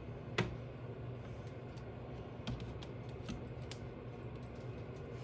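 Light taps and clicks of puff pastry being handled and folded on a perforated metal baking tray, with one sharper click about half a second in, over a steady low hum.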